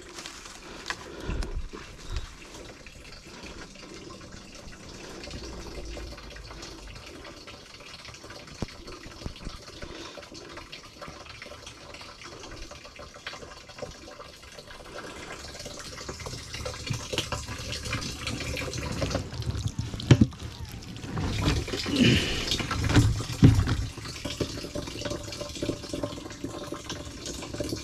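Spring water running from a pipe into a plastic water tank through a mesh strainer, a steady trickle and splash. It gets louder in the second half, with a few knocks as the tank and pipe are handled.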